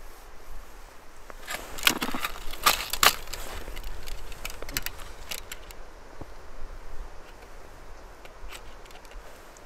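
Sharp clicks and knocks of a wooden ice-fishing tip-up being handled and set over an ice hole. There is a quick cluster about two to three seconds in, then scattered lighter clicks.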